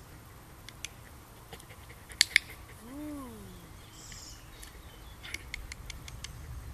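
A dog-training clicker clicked twice in quick succession, the sharpest sound, with a run of lighter clicks later on; a short voiced note rises and falls once in between.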